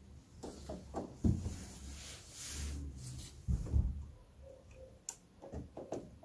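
Hands working small parts of a hydraulic headlight-levelling actuator with a thin wire: light handling noise with a few dull knocks, the loudest about a second in and again around three and a half seconds, and a sharp tick about five seconds in.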